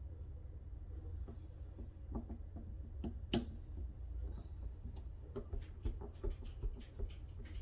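Light metal clicks and taps from handling and tightening the handle parts of a Delta kitchen faucet. One sharper click comes about a third of the way in and a quicker run of clicks in the second half, over a steady low hum.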